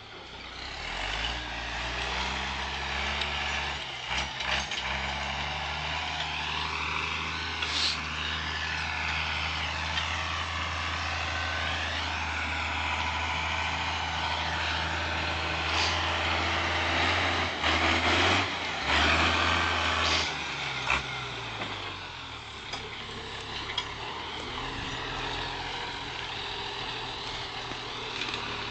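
International Harvester tractor's diesel engine working hard while clearing brush: revs rise about a second in, hold steady, then drop away around twenty seconds in. A few sharp cracks of snapping brush and branches come through along the way.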